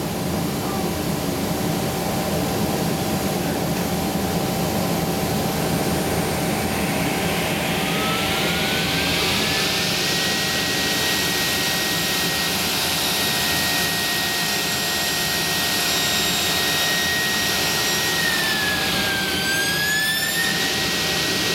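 Automatic circular sawing machine cutting through a solid round metal bar. Under a steady machine hum, a hissing cutting noise builds from about a quarter of the way in, and a high whine rises in pitch, then holds with a brief dip near the end.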